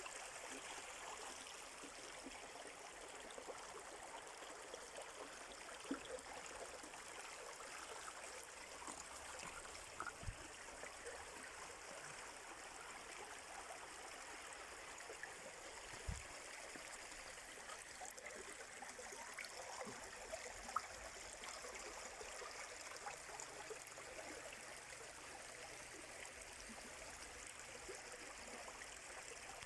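A stream flowing steadily, a continuous watery rush with a few small splashes or clicks.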